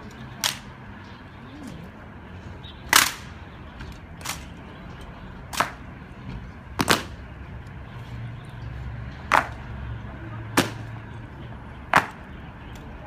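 Honor guard rifle drill: a series of sharp cracks, about one every second or two with a quick double in the middle, as the guards slap and handle their M1 Garand rifles.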